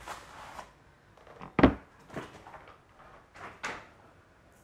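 Unboxing handling sounds: cardboard packaging and its heavy contents being moved about, with a few knocks and rustles and one solid thump about a second and a half in.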